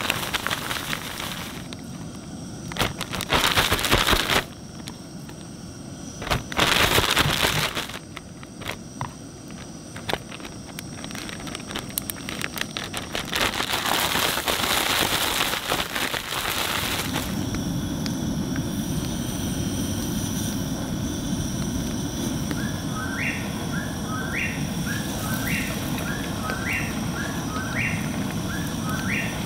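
Plastic zip bag of cornmeal breading shaken in four loud bursts of crinkling and rustling to coat catfish pieces. After that comes a steady low rush with a short chirp repeating about once a second.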